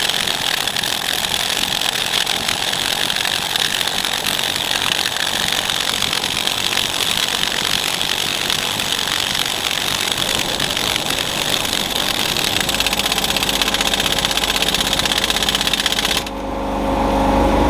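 Pneumatic impact wrench hammering continuously on a seized bolt for about sixteen seconds, then cutting off suddenly. Under it a steady motor hum, the air compressor running, builds up in the second half and carries on alone after the wrench stops.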